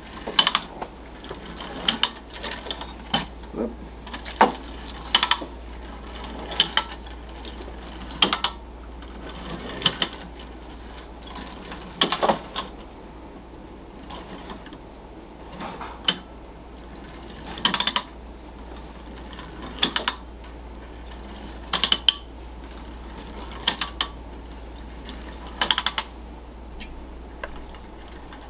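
Clockwork motor of a vintage Marx 'Old Jalopy' tin wind-up toy car running after being wound, with sharp metallic clacks recurring roughly every two seconds.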